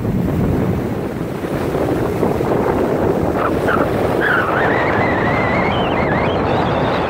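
Heavy storm surf from an approaching hurricane, breaking and rushing on the beach, under gusty wind buffeting the microphone. A thin wavering whistle rises and falls for a few seconds in the second half.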